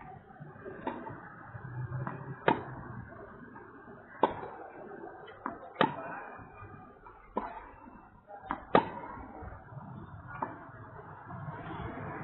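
Tennis balls being hit back and forth with rackets in a rally: a sharp pop about every one and a half seconds, with fainter ball bounces in between.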